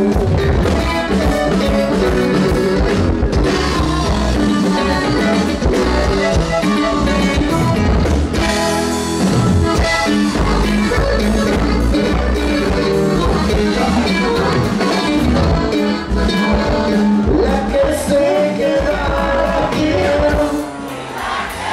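Live norteño band music: button accordion, bajo sexto and drums playing, with a man singing into the microphone. The music dips briefly near the end.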